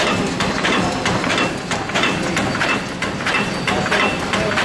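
Gietz HTF paper-processing machine running at production speed: a steady, rhythmic mechanical clatter of about three strokes a second over a constant low running rumble.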